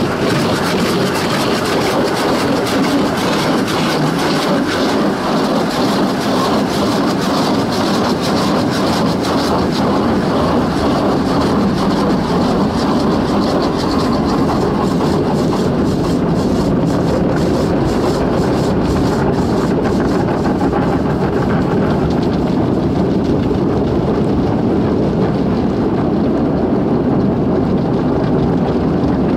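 Automatic car wash heard from inside the car: rotating wash brushes scrubbing over the windscreen and body while water sprays onto the glass, a loud, steady rush and rumble.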